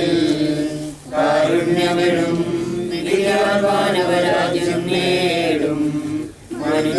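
Malayalam funeral hymn sung as a slow chant, in long held notes, breaking off briefly about a second in and again near the end.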